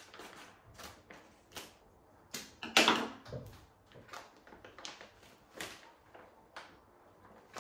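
Stiff groundbait bag being opened and handled: crinkling and rustling of the packaging with a string of short crackles, loudest about three seconds in.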